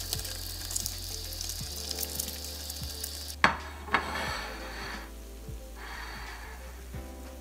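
Whole fish deep frying in a pan of hot oil, the oil bubbling and crackling densely, with background music underneath. About three and a half seconds in, the sizzling drops away after two sharp knocks, leaving the music with fainter noise.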